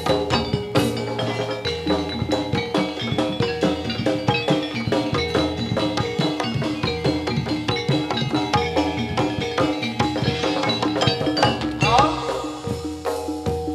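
Javanese gamelan accompaniment for jathilan dance: kendang hand drums beating a dense, quick rhythm over ringing metallophones and gongs.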